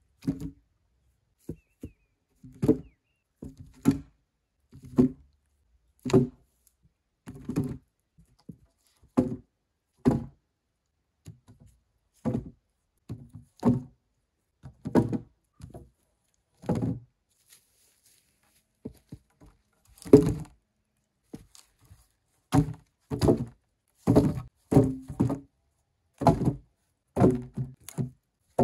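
Birch logs being laid one after another onto a stacked log wall, each landing with a dull wooden thunk. About one a second at first, coming closer together near the end.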